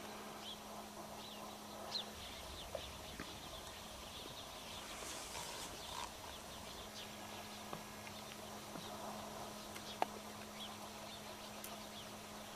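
Faint, scattered chirps of small birds in open countryside, with a low steady hum underneath and a few soft clicks.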